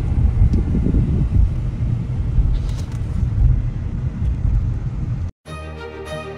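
Steady low rumble of road and engine noise inside a moving car's cabin, cutting off abruptly about five seconds in; background music follows.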